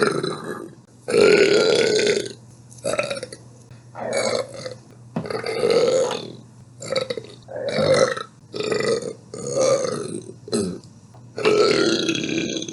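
A woman burping again and again, about ten loud burps back to back, some short and some drawn out for a second or more.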